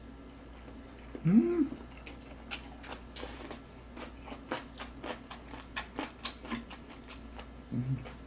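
Close-miked chewing of a mouthful of soft rolled omelette, with many small wet mouth clicks through the middle. A short rising hum of the voice about a second in is the loudest moment, and a brief hum comes near the end.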